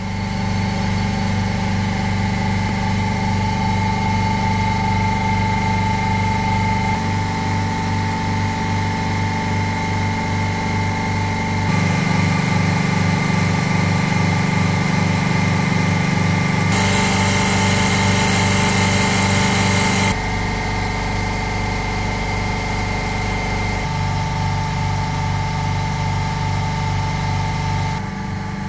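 Bitzer 6FE-50Y-40P semi-hermetic reciprocating refrigeration compressors running steadily, a loud machine hum with a fast low pulsing and a few steady tones. The tone shifts suddenly several times, and a hiss joins it for a few seconds about two-thirds of the way through.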